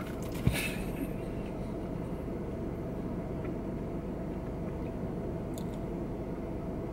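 Steady low hum of a running car heard inside its cabin, with faint chewing as a man eats a bite of a sandwich. A soft thump about half a second in.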